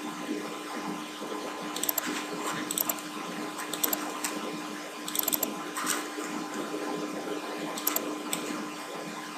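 Computer mouse clicking about eight times, several as quick double clicks, over a steady background hum and hiss.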